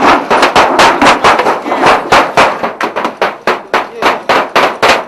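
A rapid, irregular series of loud sharp bangs, about four or five a second, each with a short ringing tail.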